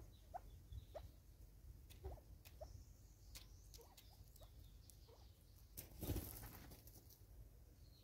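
Spurfowl foraging on a wooden stump and in dry leaf litter: faint scattered taps and scratches, with a louder rustling scuffle about six seconds in.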